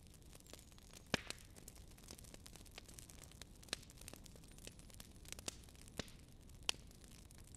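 Fire crackling: a soft steady hiss under frequent small snaps, with a few sharper pops standing out, about five over several seconds.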